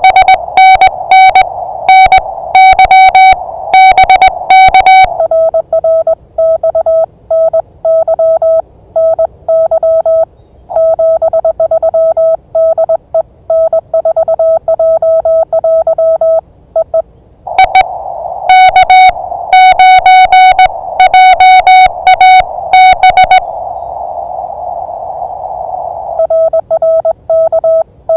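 Morse code (CW) tones from an amateur radio transceiver, two signals of slightly different pitch taking turns. A higher, buzzier signal keys for about five seconds, a lower, cleaner signal answers over receiver hiss, the higher one sends again, and the lower one returns near the end. This is the back-and-forth of a CW contact between stations.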